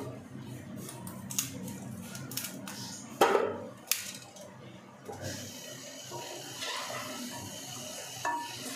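Kitchen knife cutting broccoli florets over a steel plate: scattered knocks and clinks of the blade against steel, the loudest about three seconds in. Near the end the cut florets are tipped from the plate into a steel pot.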